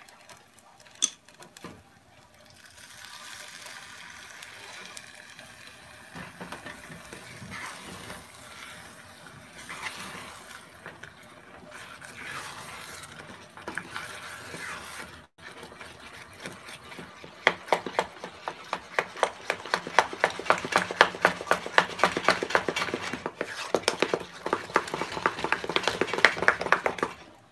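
Almond milk poured into a saucepan of thick grits, then a wooden spoon stirring the grits hard, with a rapid run of scraping and knocking against the pot over the last ten seconds, the loudest part.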